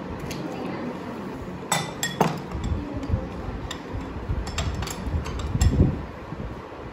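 Crockery and cutlery clinking at a dining table during a meal: two sharp clinks about two seconds in and a scatter of lighter ones later, with a dull knock near the end.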